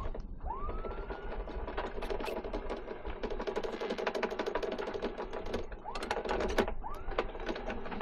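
Electric anchor windlass hauling in chain. The motor whines up in pitch as it starts and runs with a rapid clatter of chain links, then is started again twice in short bursts near the end.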